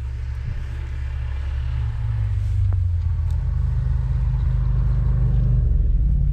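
A snowmobile engine running with a deep, steady drone, growing steadily louder as it approaches.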